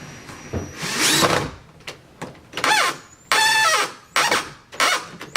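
Power drill driving screws into a door hinge in several short trigger bursts, its motor whine rising and falling in pitch with each pull.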